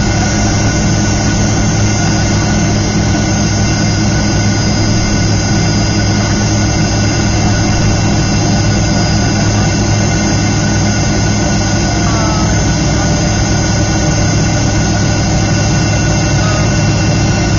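Rolls-Royce Tay turbofans of a Fokker 70 running at taxi power, heard from inside the cabin. A steady engine whine sits over a low hum and rushing noise.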